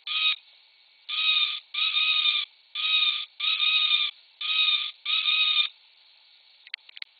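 Owl-shaped noisy key light's tiny speaker playing an electronic owl hooting call: a short hoot, then three pairs of steady, thin hoots, stopping a little after five seconds in. A few light clicks follow near the end.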